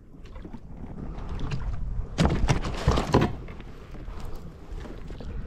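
Wind rumbling on the microphone out on the open water, with a cluster of sharp knocks and rustles about two seconds in from hands handling a freshly caught fish.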